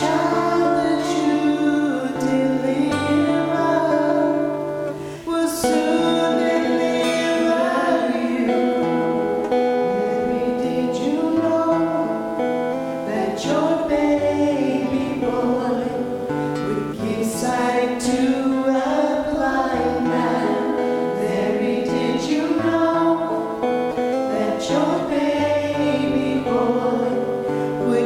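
Worship song: voices singing with guitar accompaniment.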